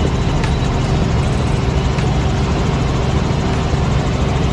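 Helicopter in flight, heard from inside the cockpit: the engine and rotor keep up a loud, steady drone mixed with the rush of air.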